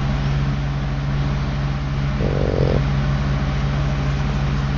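Pug snoring in its sleep, a fine rapid rattle over a steady low hum, with a brief louder snort-like swell about two seconds in.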